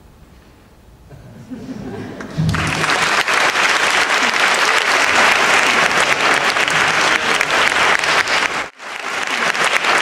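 Audience of schoolchildren and adults applauding. It builds from a few claps to full, dense applause about two and a half seconds in, breaks off abruptly for a moment near the end and then resumes.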